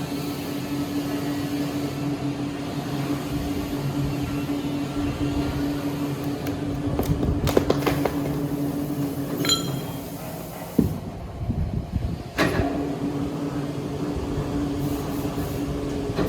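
Large wood-sawing machinery running with a steady hum, with scattered knocks and clatter. The hum breaks off briefly about eleven seconds in, then starts again sharply.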